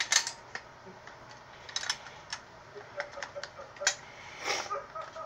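Metal and polymer parts of a Charles Daly Honcho 20-gauge pump shotgun clicking and knocking together as it is put back together by hand: scattered sharp clicks, with a longer scraping sound about four and a half seconds in.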